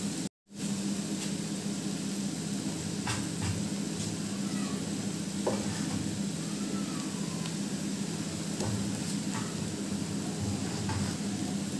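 Flattened rice and grated coconut sizzling steadily in an oiled frying pan, with a spatula stirring and giving occasional short scrapes and clicks against the pan. The sound drops out for a moment just after the start.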